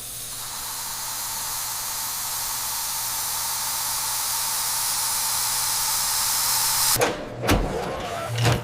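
Steady hissing like a spray or jet of air or steam, slowly growing louder for about seven seconds over a low machine hum. It then cuts off suddenly, followed by a couple of sharp knocks near the end.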